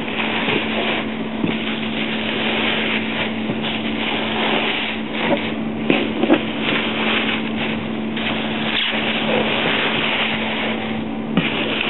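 Bubble wrap and plastic bags of packing peanuts rustling and crinkling continuously as they are handled in a cardboard box, with a couple of sharper crackles about six seconds in.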